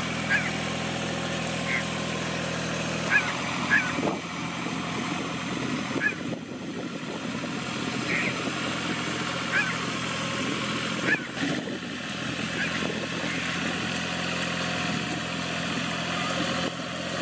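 Mahindra tractor's diesel engine running steadily under load as it drags a log leveller through flooded paddy mud on iron cage wheels. Short high chirps come and go over the engine.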